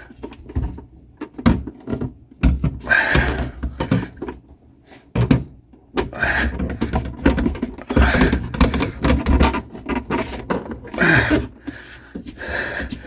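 Irregular knocks, clunks and scraping of a garbage disposal unit being lifted and twisted onto its mounting ring under a sink.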